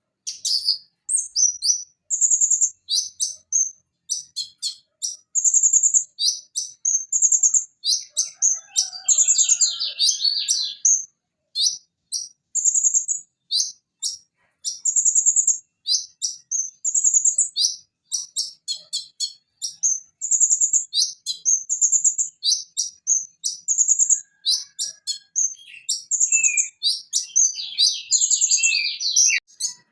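Purple-throated sunbird (konin) singing: rapid runs of high, sharp chirps and buzzy trills, broken by short pauses.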